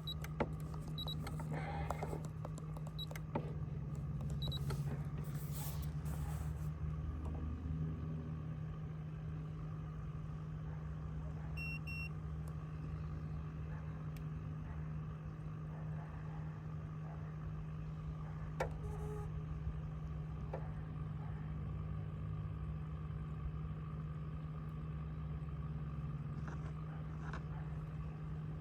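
A boat motor humming steadily, with a short double electronic beep about twelve seconds in and a few scattered clicks.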